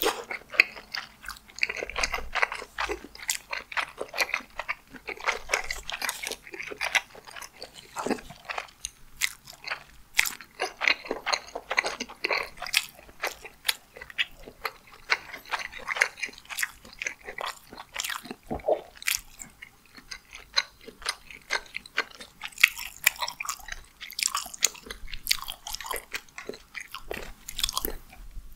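A person chewing tteokbokki fish cake in spicy sauce close to the microphone: a steady, irregular run of wet, sticky mouth sounds and small clicks.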